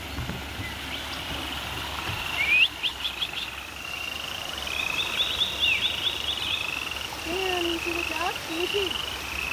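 Runs of rapid, high chirping trills, repeated again and again, over the steady rush of a small waterfall. A few lower wavering calls come in near the end.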